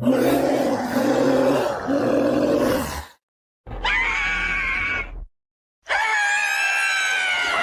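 Three Android 18 voice clips cut one after another with dead silence between: a strained, low effort grunt of about three seconds, then two shorter, high-pitched shouts.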